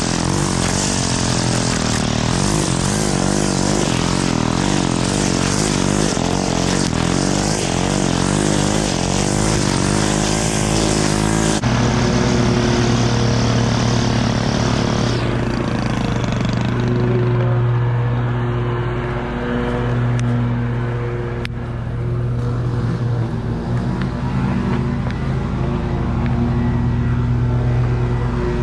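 Stihl string trimmer engine running. Its pitch wavers for roughly the first twelve seconds, then the sound changes suddenly to a steadier, lower drone, and the high hiss fades out a few seconds later.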